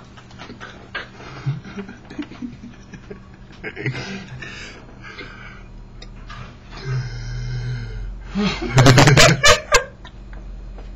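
Young men's wordless vocal noises close to a webcam microphone: scattered short sounds, a low drawn-out sound about seven seconds in, then a loud cluster of vocal bursts near the end.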